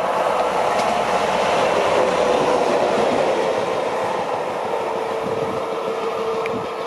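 SNCF BB 67000 diesel locomotive and its train passing at speed: engine noise and wheels running on the rails, loudest about two seconds in and then slowly fading as it moves away. A steady hum stands out more in the second half.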